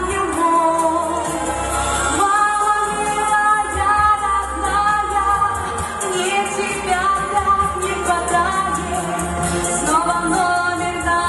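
A woman singing a slow song into a microphone over instrumental accompaniment, holding long notes.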